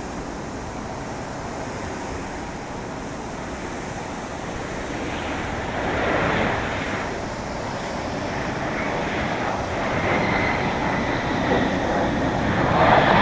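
Boeing 737-800's CFM56 jet engines heard from a distance as the airliner touches down and rolls out on the runway: a steady rushing that swells from about five seconds in and grows louder toward the end.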